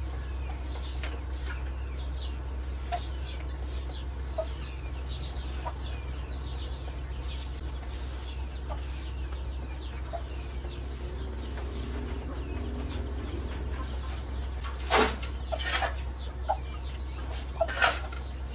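Chickens clucking among many faint small-bird chirps, with a few loud calls about fifteen seconds in and again near the end, over a steady low hum.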